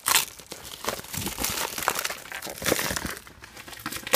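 Plastic packaging bags crinkling as they are handled, in irregular bursts, with a loud rustle just after the start and another at the end.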